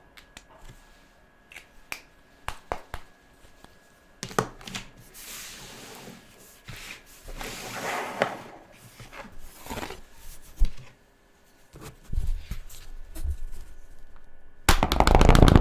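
A thick black colouring pencil scratching across paper in uneven back-and-forth colouring strokes, with scattered clicks and taps of handling before and after. Near the end comes a louder rustling burst about a second long.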